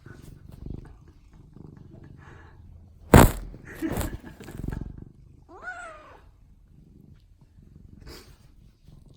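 Domestic cat purring steadily, with one short meow rising and falling in pitch about six seconds in. About three seconds in comes a sharp, loud knock or rustle close to the microphone, the loudest sound, followed by a second, softer noisy burst.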